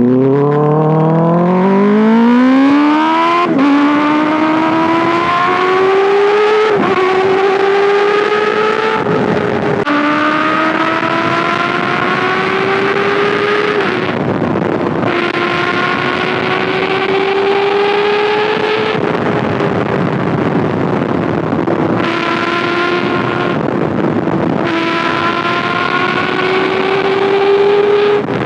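Kawasaki ZX6R 636cc inline-four engine and exhaust under hard acceleration: the revs climb steeply, with quick drops in pitch at each upshift. It then runs at high, fairly steady revs, with brief lifts of the throttle and a rush of wind underneath.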